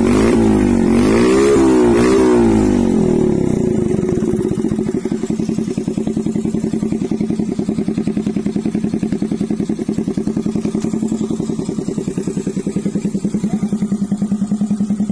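Honda Astrea Grand's single-cylinder four-stroke engine running through a twin-tip Pavta aftermarket exhaust. It is revved in a few quick blips over the first three seconds, then settles to an even, pulsing idle.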